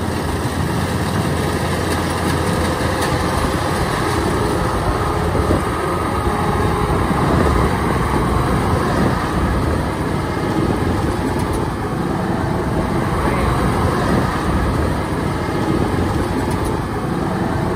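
Kubota DC-105X rice combine harvester running steadily while cutting rice, its diesel engine and threshing machinery going at an even pitch.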